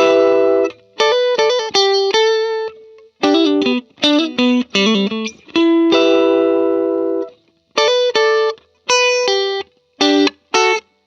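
Guitar music: short phrases of plucked notes and chords that stop abruptly several times, with brief silences between them.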